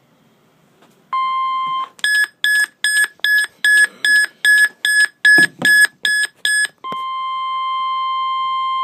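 Emergency Alert System style alert tones: a short steady tone, then a run of about a dozen quick electronic beeps at roughly two and a half a second, then a long steady alarm tone starting near the end that introduces a severe thunderstorm warning.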